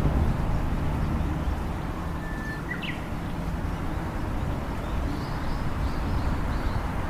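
Birds chirping: a single short call with a quick rising sweep about three seconds in, then a run of quick high chirps near the end, over a steady low rumble.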